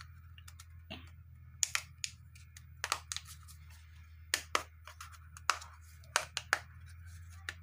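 Plastic back cover of a Unifone Banana keypad phone clicking and creaking as fingers pry and press at its edges. The cover is stiff and hard to get off. Irregular sharp clicks, a dozen or so, over a low steady hum.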